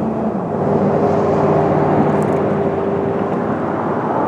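A passing engine's steady drone with a hum in it, dropping in pitch about half a second in as it goes by.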